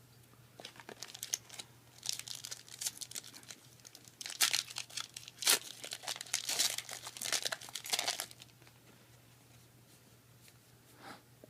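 Foil wrapper of a Yu-Gi-Oh booster pack being torn open and crinkled in the hands, a dense crackling that is loudest around the middle and stops about eight seconds in.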